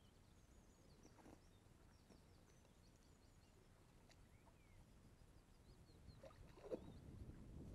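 Near silence: faint outdoor ambience with small birds chirping in the distance, and a short knock with some soft rustling near the end.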